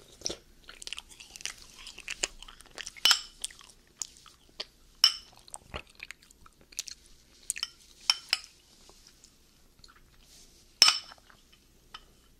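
Metal spoon scraping and scooping through frozen dessert in a glass bowl, with a run of small clicks and several sharp, ringing clinks of spoon on glass. The loudest clinks come about three seconds in, about five seconds in and near the end.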